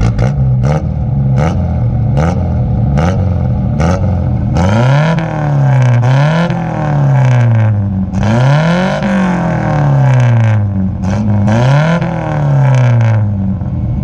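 Datsun Sunny's 1.4-litre pushrod overhead-valve carbureted four-cylinder engine being revved through its exhaust. First comes a run of quick throttle blips, about one every half to one second, then four longer revs that rise and fall in pitch, settling back to idle at the end.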